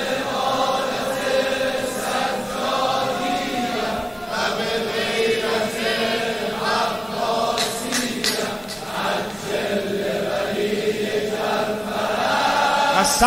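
Large crowd of men chanting together in unison, many voices blending into one steady sound, the refrain of a Shia religious sorood.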